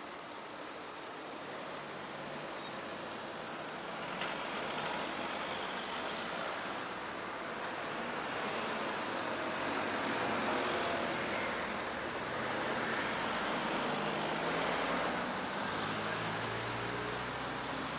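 A line of cars driving over a level crossing one after another, their engine and tyre noise growing louder as each passes close by. There is a single short click about four seconds in.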